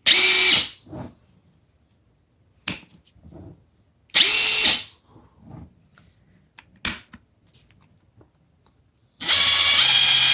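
DeWalt DCF850 cordless impact driver spinning freely in three short trigger pulls, most likely run through its speed settings. Each pull is a brushless-motor whine that winds down when the trigger is released. The second pull is higher-pitched than the first, and the last and longest steps up in pitch partway through. Faint short clicks come between the pulls.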